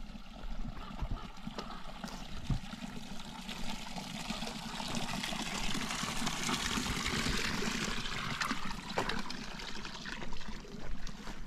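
Water trickling, swelling to its loudest in the middle and fading again near the end.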